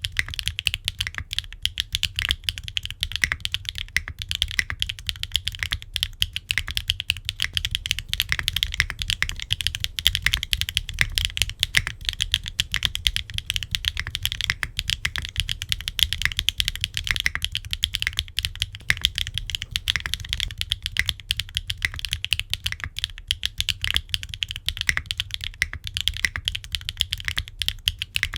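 Fast, continuous typing on a gasket-mounted aluminium-case 65% mechanical keyboard with HMX Yogrut S linear switches, an aluminium plate and no foam, with ABS double-shot Cherry-profile keycaps.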